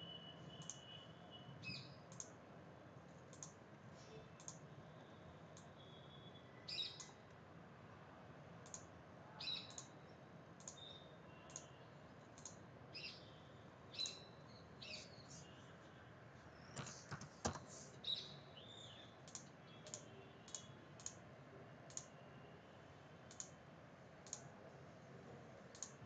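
Faint computer mouse clicks, roughly one a second, as lines are picked one at a time, over a quiet room hiss. A few of the sounds are short high chirps.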